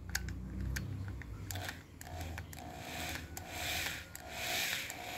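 Resistance wire being wound into a coil on a metal rod: rubbing and scraping with scattered clicks, and a faint whine that comes and goes in short spurts.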